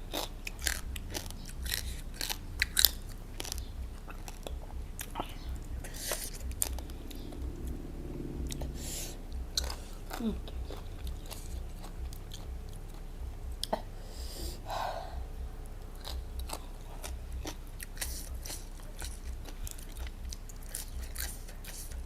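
Close-up chewing of spicy papaya salad and raw vegetables, with repeated crisp crunches and wet mouth sounds throughout.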